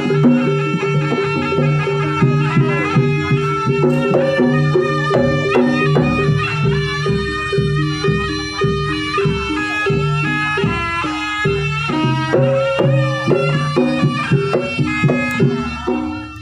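Javanese jaranan music played loud through a sound system: a reedy wind instrument holding long melody notes over steady drum strokes.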